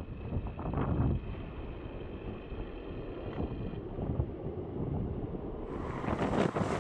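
Drone of an Airbus A400M Atlas's four TP400 turboprop engines in flight, with a faint steady whine, under wind gusting on the microphone.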